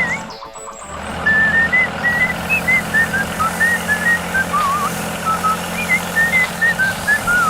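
A whistled tune of short hopping notes with a few trills plays over a steady low engine-like hum, with a brief drop in sound under a second in.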